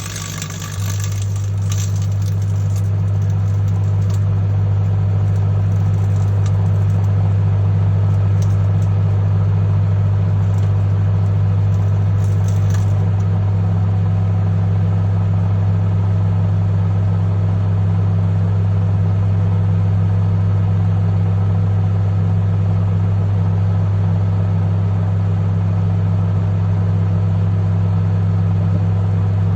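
Microwave oven running with a loud, steady low hum. Scattered crackling snaps come from inside it during roughly the first dozen seconds, then only the hum remains.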